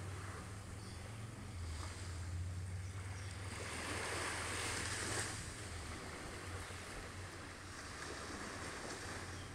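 Gentle surf washing up on a sandy beach, with one louder wash of a wave about halfway through, over a steady low rumble of wind on the microphone.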